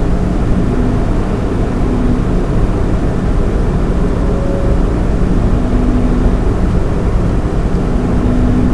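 Stock case fans of a Lian Li 217 INF PC case running at about half speed: a steady rush of air with a low hum and faint tones that swell and fade every second or so. This is the resonance noise from the stock fan setup that the owner says cannot be stopped even at 10% fan speed.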